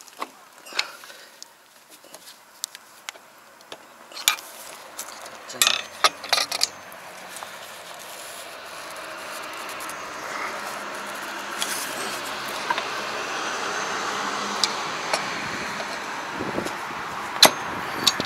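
Scattered sharp metal clinks and taps of hand tools working on a rotary tiller's gearbox housing, in a short cluster about six seconds in and singly after that. Beneath them, a steady background noise grows slowly louder through the second half.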